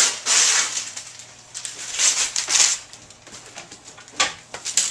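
Gift wrap and curled ribbon rustling and crinkling in two loud bursts, with a sharp knock about four seconds in.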